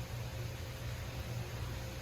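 Steady low hum with an even hiss and a faint steady tone above it, no distinct events: background room tone.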